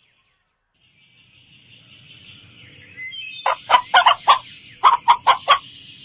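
A chicken clucking in a quick run of short, loud calls that starts about three and a half seconds in, over a faint background hiss.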